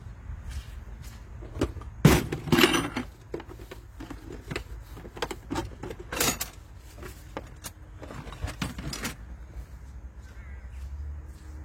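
Rummaging and handling of metal parts and tools: irregular clanks, knocks and rattles, loudest about two seconds in and again near six and nine seconds.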